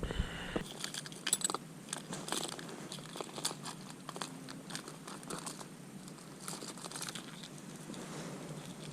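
Rustling and crinkling with many small, irregular clicks of fishing tackle being handled close to the microphone. A low rumble fades out in the first second.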